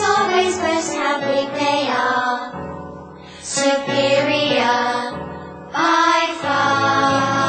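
A children's song: singing over backing music, in phrases with a short break near the middle.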